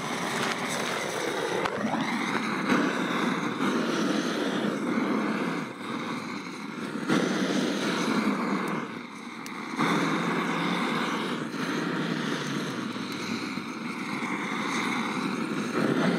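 Handheld gas torch burning with a steady rushing hiss as its jet flame is held against kindling to light a wood fire, dipping briefly a couple of times.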